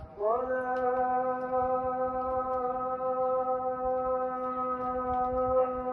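A single voice holding one long sung note, rising into it at the start and wavering slightly in pitch near the end.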